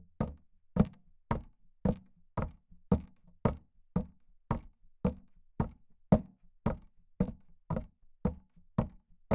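A long, steady run of knocks, a bit under two a second and evenly spaced, each a sharp hollow strike, starting out of silence and stopping abruptly.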